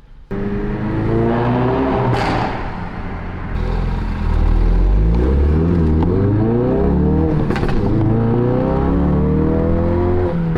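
Ford Focus RS Mk3's turbocharged 2.3-litre four-cylinder engine pulling hard, rising in pitch and dropping back several times as it shifts through the gears. A sharp crack comes about two seconds in.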